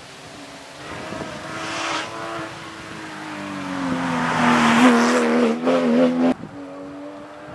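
Porsche 911 rally car approaching at speed and passing close, its engine note falling in pitch as it grows louder, then wavering near the loudest point. The sound cuts off abruptly about six seconds in, leaving a fainter engine note from farther off.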